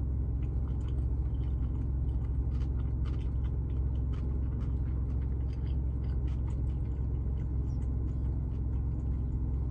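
Steady low rumble inside a parked car's cabin, with faint, irregular small clicks of a man chewing a mouthful of sushi roll.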